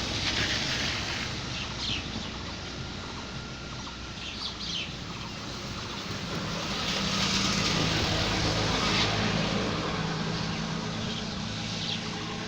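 Steady outdoor noise with a motor vehicle passing, loudest about seven to nine seconds in, and a few short bird chirps.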